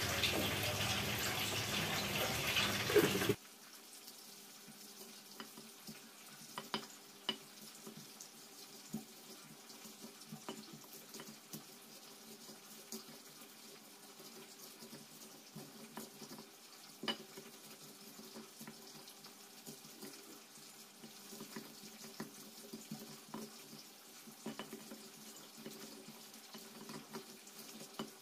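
A steady hiss for about the first three seconds that cuts off suddenly, then faint, irregular knocks and crunches of a stone pestle pounding red chilies, shallots and garlic in a flat stone mortar.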